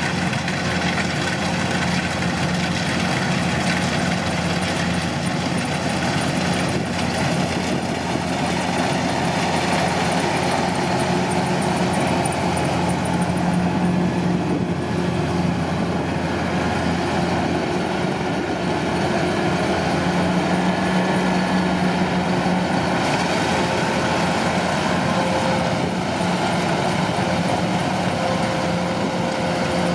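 Kubota DC-105 combine harvester's diesel engine and machinery running steadily, a continuous loud drone with mechanical clatter.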